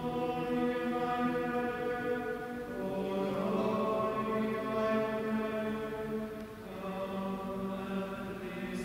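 Cathedral choir singing slow, sustained chords in a large cathedral, the harmony shifting about three seconds in and again near the end.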